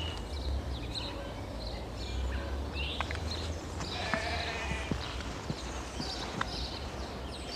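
Open-air ambience: scattered short, high bird chirps over a steady low rumble of wind, with a brief animal call about four seconds in.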